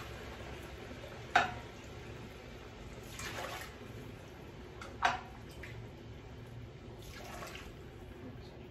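Chicken broth being poured by the glassful into a cooking pot, in short pours, with two sharp clinks, about one and a half and five seconds in.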